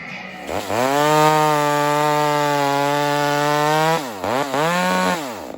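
Ported Echo 4910 two-stroke chainsaw revved up to full throttle and held wide open for about three seconds, not bogging in a cut. It drops back, is blipped once more briefly, then falls back to idle.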